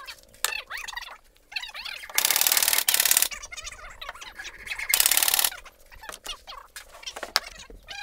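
Domestic fowl calling in the background. Two loud bursts of noise cut through: one of about a second, then a shorter one about two seconds later. Scattered light knocks of wood being handled are also heard.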